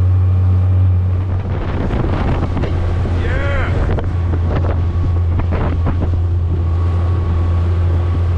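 A 15 hp Mercury outboard motor runs at a steady speed, driving an inflatable dinghy, with a constant low drone. Water rushes along the hull and wind buffets the microphone.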